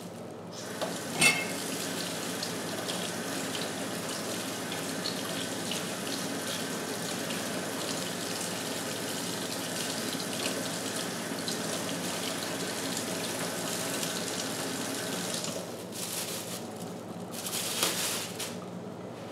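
Water running steadily. It starts abruptly about half a second in and stops about 15 seconds in, then runs again briefly near the end.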